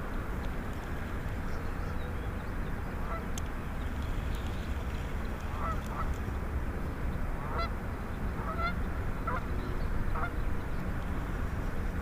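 Geese honking: short calls, a few from about three seconds in and more often in the second half, over a steady low rumble.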